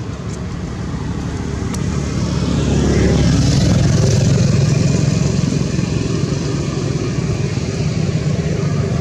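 Motor vehicle passing on a nearby road: a steady low engine rumble that swells about three seconds in and stays up.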